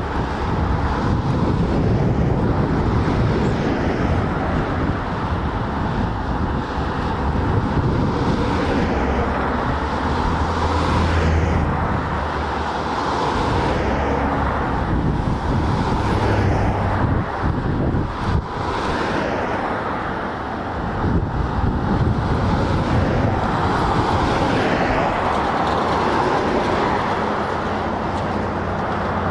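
Steady vehicle engine rumble with gusts of wind on the microphone.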